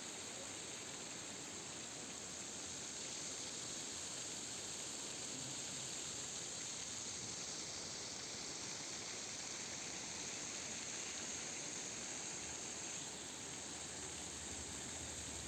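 Steady rushing of water from cascading streams and small waterfalls.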